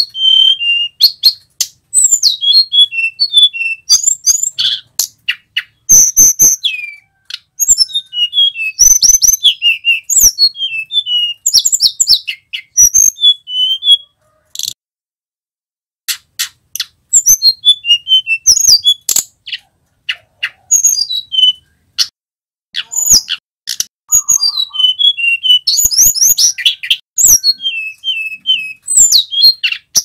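Male hill blue flycatcher singing: rapid phrases of high, sweet whistled notes that slide up and down, mixed with sharp clicks. The song breaks off for about two seconds halfway through, then resumes.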